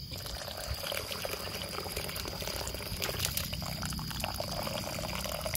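Goat-meat broth poured in a steady stream into a clay pan of fried shallots and drumstick leaves, splashing and crackling throughout.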